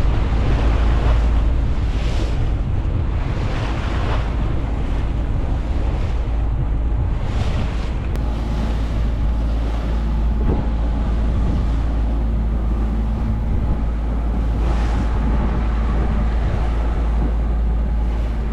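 Wind buffeting the microphone over water rushing and splashing along the hull of a sailboat beating upwind, swelling in surges every few seconds as the boat meets the waves.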